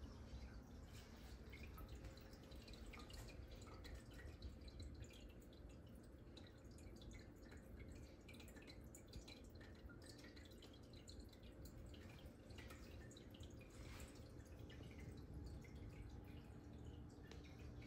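Near silence: quiet indoor room tone with a low hum and faint, scattered light ticks.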